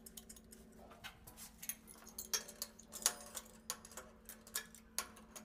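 Faint, irregular small clicks and ticks of a connection pipe's nut being threaded and tightened by hand onto a wall-mounted angle valve.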